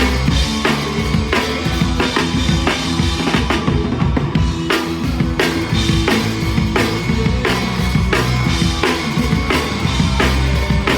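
Live rock band playing loud, with the drum kit to the fore: a steady beat of kick and snare hits over sustained bass and guitar notes.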